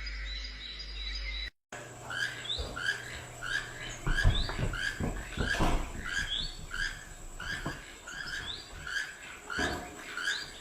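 A bird calling in a fast series of short, squeaky notes, about two a second, after a sudden cut about a second and a half in, with soft low knocks among the calls.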